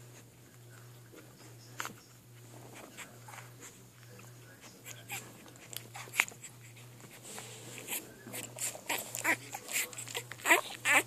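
Three-day-old bull terrier puppies nursing: short wet smacking and suckling clicks, with a few brief squeaks, growing busier and louder through the second half.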